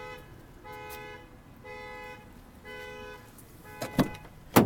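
Pickup truck's cab warning chime sounding at a steady pace of about one tone a second, then two sharp knocks near the end.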